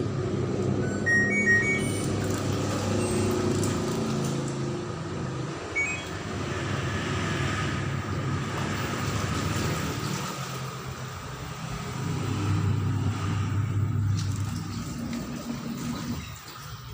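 LG FN1073 front-loading washing machine set to spin: a few short control-panel beeps about a second in, then the drum and motor run with a steady low hum and rumble, easing off near the end.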